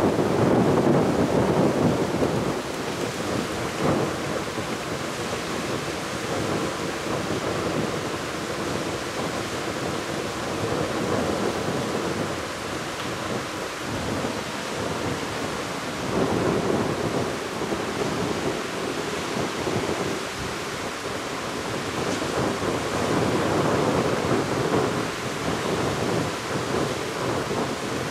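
Surf breaking and washing on a beach: a continuous rushing noise that swells and eases every several seconds.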